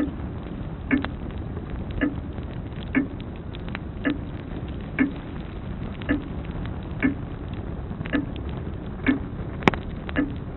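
Grandfather clock ticking steadily, about once a second, over the low hiss and crackle of a log fire. One sharp pop from the fire comes near the end.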